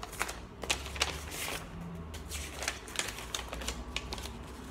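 A sheet of paper being unfolded and handled, making irregular crisp crackles and snaps.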